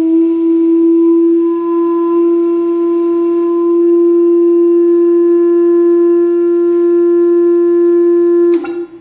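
A loud, steady humming tone with overtones, held without a break and then cut off suddenly with a click near the end.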